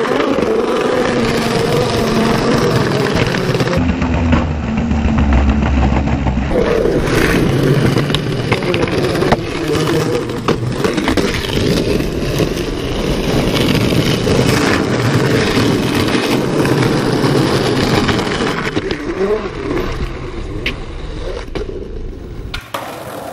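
Skateboard wheels rolling over rough street pavement, a continuous gritty rumble, with a few sharp clacks of the board on the ground.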